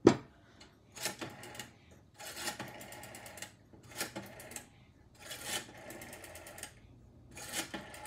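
Rotary telephone dial being dialed, several digits one after another: each pull of the finger wheel is followed by a run of fast clicks as the dial spins back and sends its pulses. A sharp click comes right at the start.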